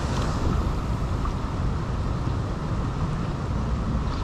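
Steady rushing noise of fast-flowing creek water, with wind buffeting the microphone.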